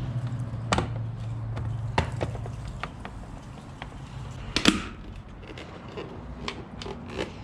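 Sharp plastic clicks and knocks as a replica M3-style mirror cover is pressed and snapped onto the tabs of a BMW mirror housing. The loudest click comes a little under five seconds in. A low hum fades out after the first two or three seconds.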